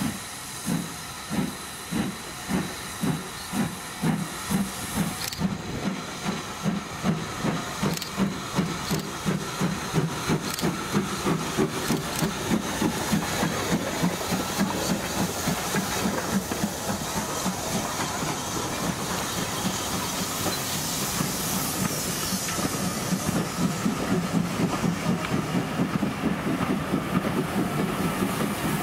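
GWR 1500 class pannier tank no.1501 pulling away with its train: the exhaust beats are about a second apart at first and come steadily faster until they run together, over a steady hiss of steam. Through the second half the coaches roll past.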